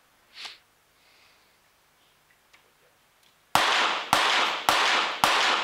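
A .22 Short rapid-fire pistol fired in quick succession: four sharp shots a little over half a second apart, beginning past the middle, each echoing in the indoor range hall. These are the opening shots of a timed five-target rapid-fire series.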